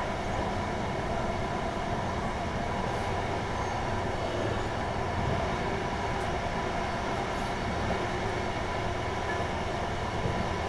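Pesa 218Mc diesel train running at speed, heard from inside the passenger cabin: a steady, even rumble of running noise with no breaks or distinct clicks.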